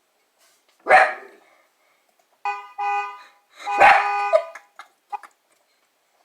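A dog barks once, loudly. Then a car-horn sound effect honks twice in short beeps, and the dog barks again over a longer honk: the dog is barking back at the horn.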